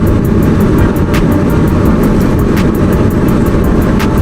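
Steady road and engine rumble inside a moving car's cabin, with a faint click about every second and a half.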